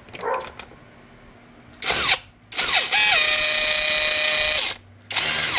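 Handheld power tool spinning in three runs: a short burst, a longer run of about two seconds whose pitch drops and then holds steady, and another short burst near the end. It is running out the bolt of an engine ground wire.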